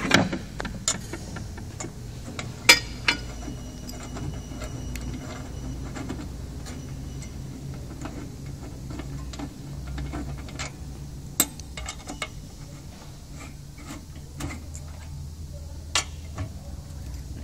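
Scattered small clicks and taps of hands handling a heat press's temperature-sensor cable and its plastic plug connector, a few sharper clicks among them, over a steady low hum.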